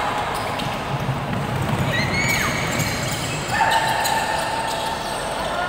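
Basketball bouncing on a hardwood gym court during play, amid short squeaks. A sustained pitched tone runs from about three and a half seconds in until near the end.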